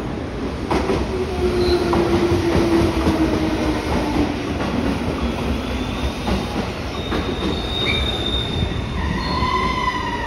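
JR West 201 series electric commuter train pulling away from the platform. It starts about a second in with a steady motor tone that slowly falls in pitch as it gathers speed. Over the last few seconds, high-pitched wheel squeals join in as the cars roll past.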